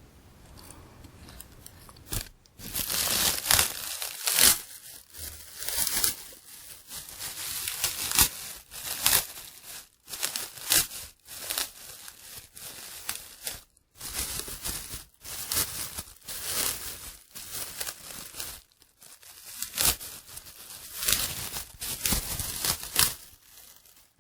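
Plastic wrapping of a candy apple being crinkled and torn, in irregular bursts.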